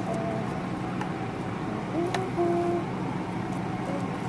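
Plastic rice paddle pressing sticky glutinous rice into a metal cake pan, giving a few light clicks against the pan over a steady low background hum. A brief pitched sound comes about two seconds in.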